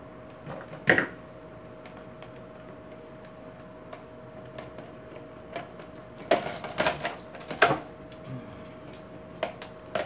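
Clicks and knocks of the fan's motor housing parts being fitted and closed by hand. There is one sharp knock about a second in, then a cluster of clicks and knocks about six to eight seconds in, over a faint steady hum.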